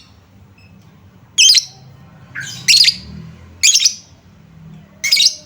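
Lovebird calling: four loud, short, shrill calls, one about every second to second and a half, with softer chattering between them.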